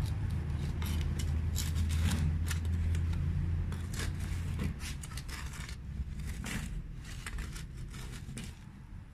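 Blue plastic garden trowel scraping and jabbing around the inside wall of a plastic flower pot, working through potting soil to loosen a hibiscus root ball: a run of short scrapes and scratches. A low steady rumble runs underneath until about halfway through.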